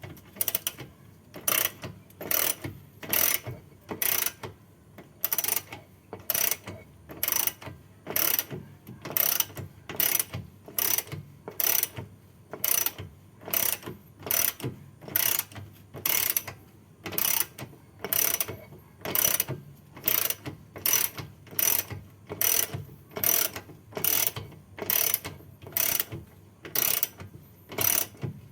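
Hand ratchet wrench turning a fastener in steady back-and-forth strokes, each stroke a short burst of ratcheting clicks, about once a second.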